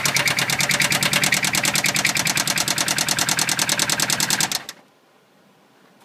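2003 Subaru WRX's turbocharged flat-four engine running with a fast, even clatter, a really nasty sounding motor: the engine is bad, and a new oil pump and sending unit did not cure the noise. The engine stops abruptly near the end.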